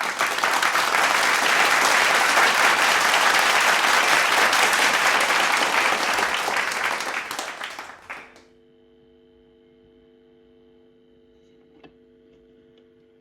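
A loud, dense crackling noise like applause that fades out about eight seconds in, leaving a faint steady hum from the record playback with a single small click near the end.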